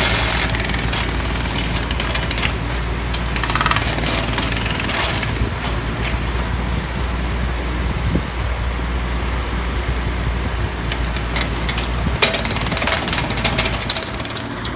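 Mini excavator's hydraulic breaker hammering into a road surface in rapid blows, in a burst of a couple of seconds at the start and again near the end, with the digger's engine running steadily underneath.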